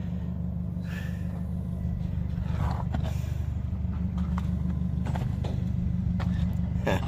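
Steady low drone of an engine or machine running nearby, with a few faint clicks and knocks over it.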